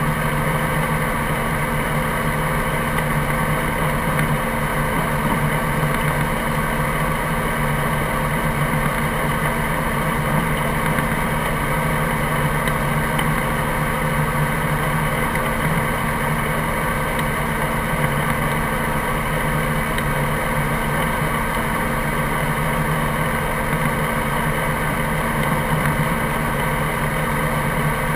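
Helicopter engine running steadily at idle on the ground, an even drone with a constant whine over it.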